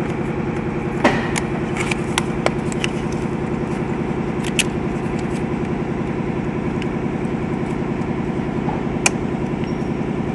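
BMW six-cylinder engine idling steadily while misfiring, most likely from a faulty ignition coil. A few sharp clicks and knocks sound over it, about a second in, twice around two seconds, near five seconds and at nine seconds.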